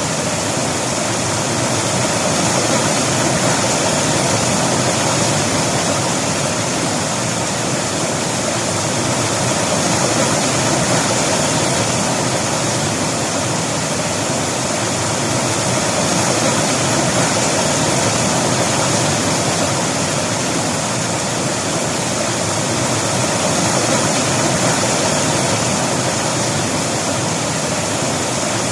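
River water flowing and splashing over rocks, a steady full rushing.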